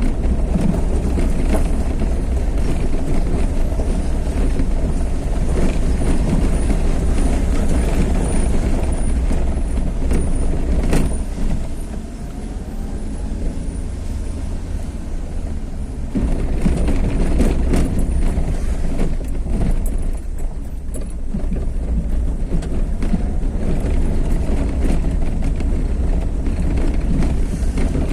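Road vehicle on the move: steady engine and road noise with a heavy low rumble, and one sharp knock about eleven seconds in.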